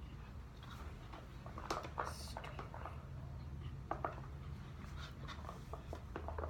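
Slime being stirred in a bowl as liquid starch activator is mixed in: irregular scrapes and clicks of a utensil against the bowl, over a steady low hum.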